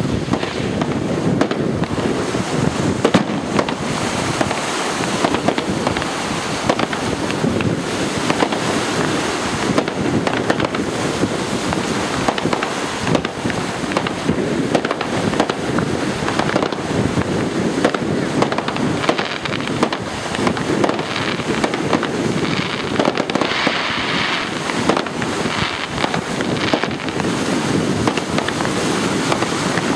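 Aerial fireworks bursting in a continuous barrage of many bangs and crackles, one after another.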